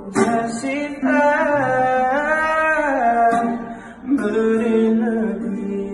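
A male voice sings long drawn-out notes over an acoustic guitar. The first phrase rises and falls, and after a short break about four seconds in, a lower note is held.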